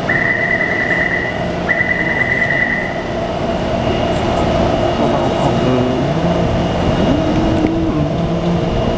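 Taipei Metro C321 refurbished train heard from inside the car: three long, steady high beeps in the first three seconds over a constant running hum. From about the middle on, low drive tones shift in pitch, from a traction inverter that is reported to be faulty.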